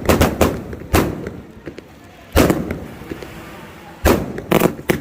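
Fireworks display bursting overhead: a quick cluster of sharp bangs at the start, single loud bursts about a second in and near halfway, and another cluster near the end. Each bang trails off in a rumbling echo.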